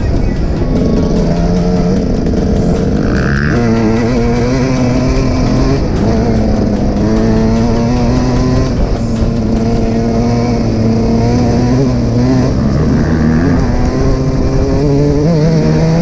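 Dirt bike engine running while riding, its pitch rising and falling with the throttle.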